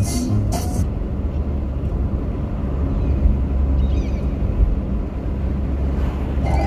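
Car driving, a steady deep engine and road rumble; music playing at the start cuts off suddenly under a second in.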